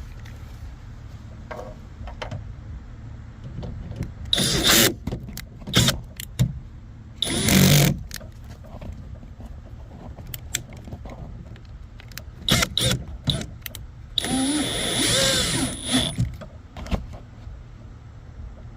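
Tools fastening the door handle's mounting nuts inside a pickup truck door: several short metallic clatters and rattles, and a longer buzzing run with a wavering pitch about three-quarters of the way through.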